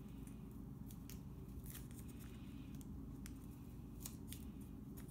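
Masking tape being handled and wrapped tightly around a wire at a drill chuck by hand: faint scattered crackles and ticks of the tape peeling and pressing down, over a low steady hum.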